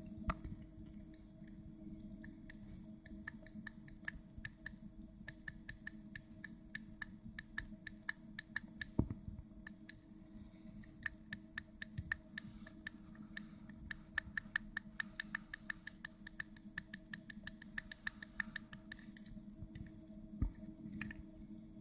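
Rapid series of sharp plastic clicks from a children's Lightning McQueen toy watch being handled, several a second in runs with short pauses, over a steady low hum.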